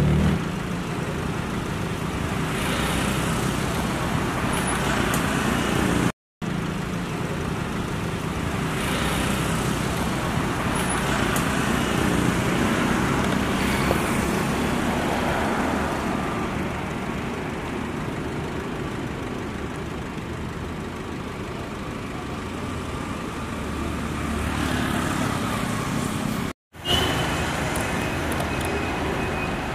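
City road traffic: a steady rumble of vehicles with several swells as vehicles pass close by. The sound cuts out briefly twice.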